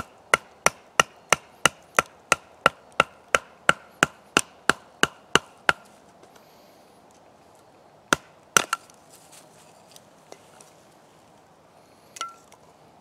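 Wood being chopped with a blade in a quick, even run of about three strikes a second for some six seconds. After a pause of a couple of seconds come a few more heavy strikes.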